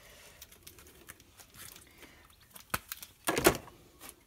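A single sharp click, then a moment later a short rustling clatter as the Flow Frame's thin metal wires are picked up and handled.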